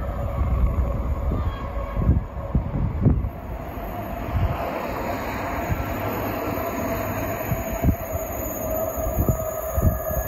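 Electric passenger train approaching along the track: a steady rail hum with a hiss that grows louder from about halfway through, and a few short low thumps.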